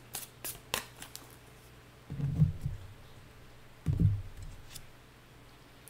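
Tarot cards being handled: a few light clicks of cards in the first second, then two dull thumps against the table about two and four seconds in as a card is drawn and laid down.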